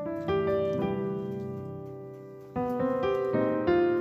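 Background piano music: notes and chords ringing out and fading, with a louder new phrase starting about two and a half seconds in.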